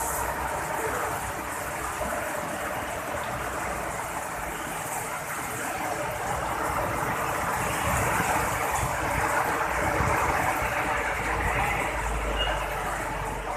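Heavy rain pouring down in a dense, steady hiss, growing a little louder about eight seconds in, with a low rumble near the end.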